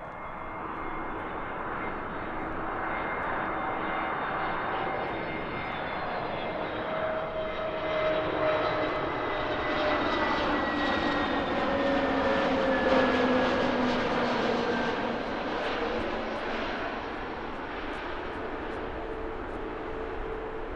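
Airbus A321neo (A321-251NX) on landing approach, its CFM LEAP-1A turbofans whining and rushing as it passes close by. The sound swells to its loudest about thirteen seconds in, and the engine whine drops in pitch as the jet goes past. It then settles lower as the aircraft descends to the runway.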